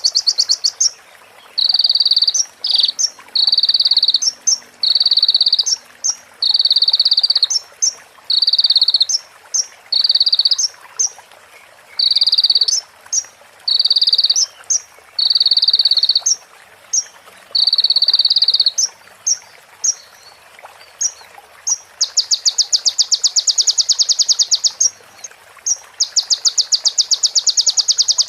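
Kolibri ninja (konin) sunbird song on a bird-training recording: short buzzy notes repeated about once a second. Near the end come two long, rapid ticking trills, each a few seconds long, the female prenjak-style phrases the track is said to carry.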